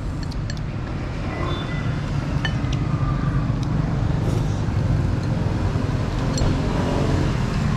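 Road traffic: a motor vehicle's engine running close by, a steady low hum that grows slightly louder, with a few light clinks of spoons and chopsticks against bowls.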